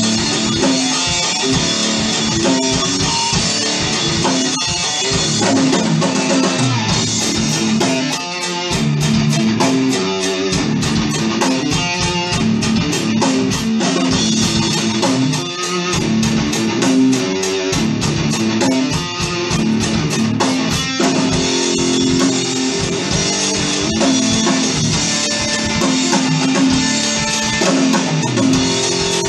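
Hard rock music with electric guitar and bass over a drum kit. Busy cymbal strokes run from about seven seconds in to about twenty seconds in.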